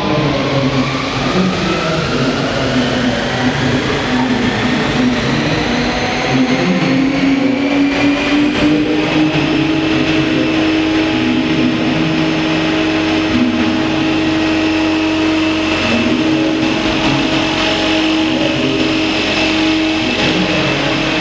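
A machine's whine climbing in pitch over roughly the first eight seconds, then holding steady at one pitch.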